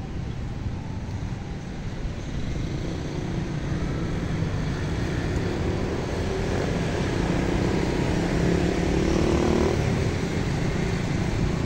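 Outdoor street traffic rumble with low buffeting on the microphone, and a vehicle engine's drone that swells to its loudest about nine seconds in, then fades.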